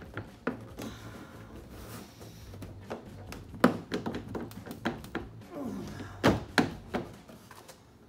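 Knocks and clicks from a Dodge Challenger's rear spoiler being pushed and worked by hand against the trunk lid, its retaining clips not popping free. A sharp knock comes a little before halfway, then a cluster of knocks about three quarters through.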